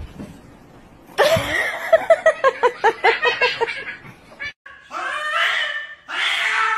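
A person laughs in quick rhythmic bursts. Then a cat being held down for a vet's examination yowls in long, wavering cries.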